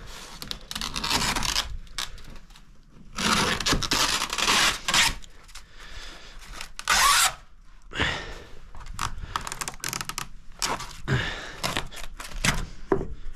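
Rotted wooden boards scraping and tearing as they are worked loose, in irregular bursts: two longer ones in the first half, then many short ones.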